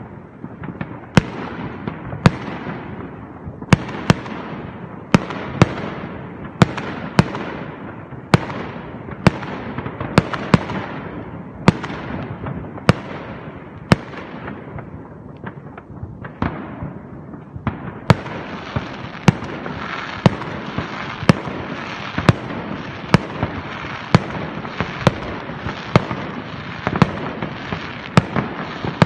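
Aerial fireworks going off in a long string of sharp bangs, about one or two a second, each trailing off in a fading crackle. About two-thirds of the way through, a steady crackling hiss sets in and fills the gaps between the bangs.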